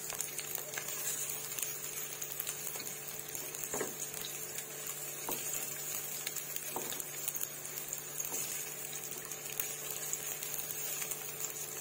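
Sliced garlic and onion sizzling steadily in hot oil as they are sautéed, with a silicone spatula stirring and scraping against the pot a few times.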